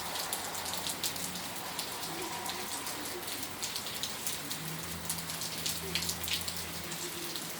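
Hailstorm: hail and rain falling steadily, with many small sharp ticks of hailstones striking. A faint low hum comes in about halfway through.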